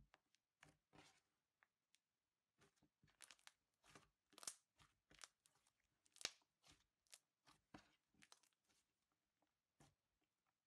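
Crunchy beaded slime being squeezed and kneaded by hand: a quiet, irregular run of small crackles and pops, with a couple of sharper ones in the middle.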